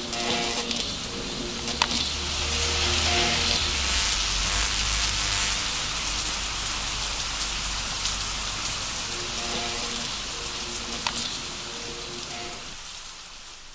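Steady rain hissing, with a low rumble of thunder that starts about a second in and fades by about eight seconds. The rain eases off near the end.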